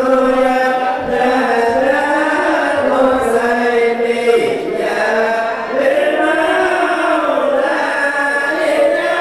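A group of men chanting Arabic Maulid verses together into microphones, in long, slowly wavering melodic lines with no drum accompaniment.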